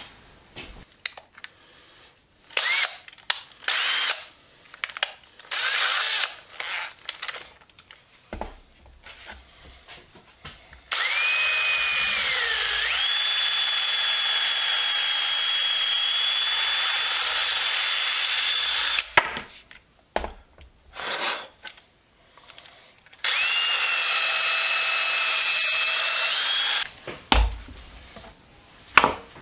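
Small handheld power tool spinning an abrasive or brush bit inside a socket to clean it. Several short bursts and knocks come first, then two long runs with a steady high whine that dips as it loads and then settles.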